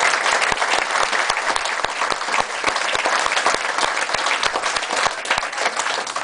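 A seated audience applauding a lecture, dense steady clapping from many hands.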